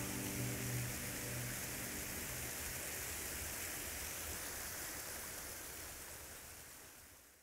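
Steady rush of flowing creek water, fading out near the end. The last held notes of background music die away in the first two seconds.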